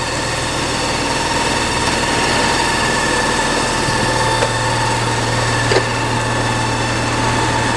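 Dennis Sabre fire engine running its Godiva pump through the PTO: a steady, smooth whine over a constant hum, the pump primed and delivering water to the side hose reels. A single light knock about six seconds in.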